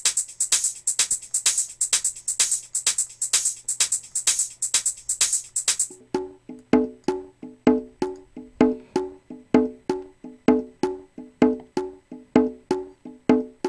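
Electronic house loop playing back from a drum machine sequencer. For about six seconds a fast run of bright hi-hat-like ticks plays over a steady low tone; then the high ticks drop out suddenly and a rhythmic pattern of short pitched percussive notes carries on.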